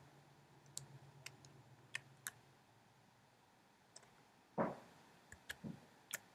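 Scattered light clicks at a computer, about nine in all and irregularly spaced, with one louder, deeper thump about four and a half seconds in.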